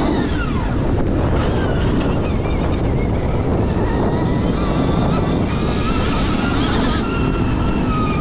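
Stark VARG electric dirt bike's motor whining, its pitch falling early on and climbing again as the throttle is worked, under heavy wind rush on a helmet-mounted microphone.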